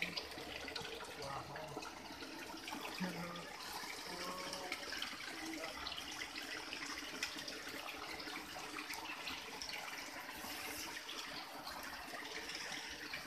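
Steady splashing of thin streams of water pouring from a row of wall spouts onto the wet ground and drain grate below.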